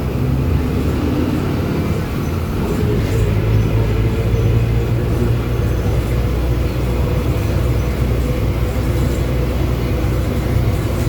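Agrale MA 15.0 bus chassis underway at steady speed: a low, steady engine drone with a constant whine over it from the differential, which is growling very loudly.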